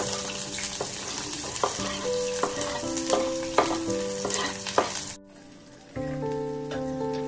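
Chopped onions sizzling as they drop into hot oil in a steel kadai, with a spatula clicking and scraping against the pan and board. The sizzle cuts off suddenly about five seconds in, over background music with held notes.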